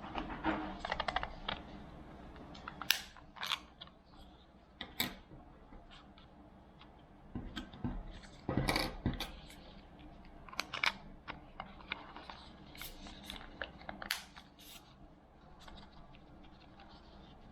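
Irregular plastic clicks, taps and knocks as a Xiaomi Mi silent mouse and its battery cover are handled.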